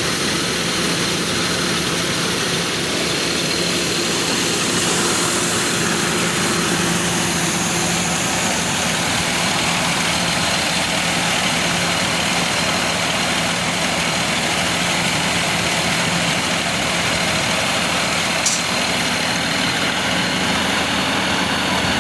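Rice combine harvester running steadily, its engine and machinery making a dense, even noise with a steady high whine on top. One short click near the end.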